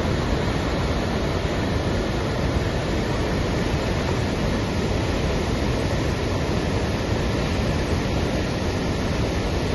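Floodwater rushing out through the open spillway gates of a dam and churning in the river below: a steady, unbroken rush of water.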